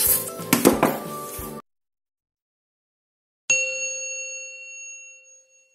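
Background music cuts off about a second and a half in; after a gap of silence, a single bell-like ding rings out and fades away over about two seconds.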